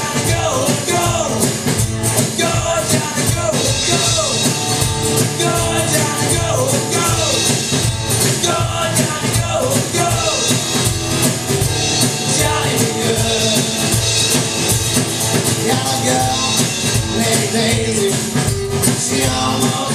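Live rock and roll band playing: strummed acoustic guitar and drum kit with a steady beat, and a singer's voice over them.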